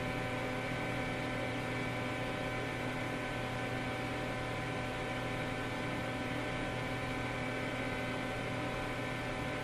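Steady electrical hum and hiss, with several constant tones layered over it and no other sound.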